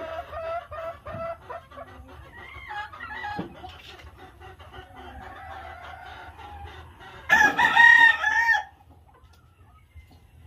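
A rooster crowing once, loud, about seven seconds in, after softer clucking and calls from chickens in the first part.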